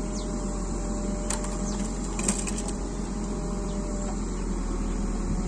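Backhoe loader's diesel engine running steadily while its arm hauls on cables, with a few faint clicks about a second and two seconds in.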